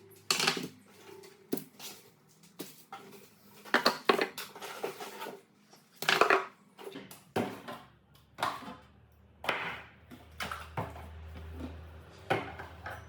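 Irregular clattering and knocking of hard objects being handled and set down while a fridge is cleared out and defrosted, a dozen or so sharp knocks at uneven intervals.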